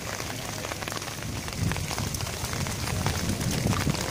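Steady rain falling, with many small drops ticking close by. A low rumble swells under it from about halfway through.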